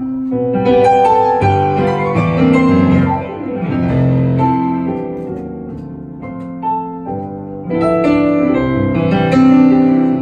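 Yamaha electric keyboard played live in piano voice: a flowing passage of chords and melody notes that eases off briefly around the middle before building again.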